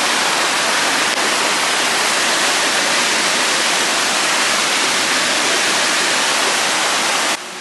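Creek water rushing and churning over a rocky cascade, a steady full hiss that cuts off abruptly just before the end.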